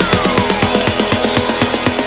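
Electronic dance music with a fast, driving beat and a falling synth glide early on.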